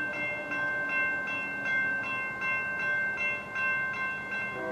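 Railroad bell ringing steadily, about two strikes a second, each strike ringing on with a clear metallic tone.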